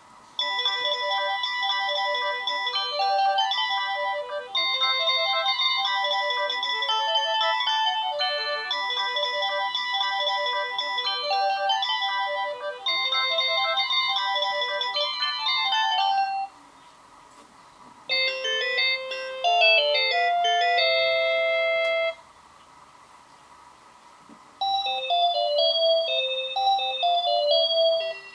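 Panasonic KX-TG1031S cordless phone handset playing its built-in melody ringtones in turn, as electronic beeping tunes. The first tune loops the same short phrase four times. After a pause a second, shorter melody plays, and after another pause a third begins near the end.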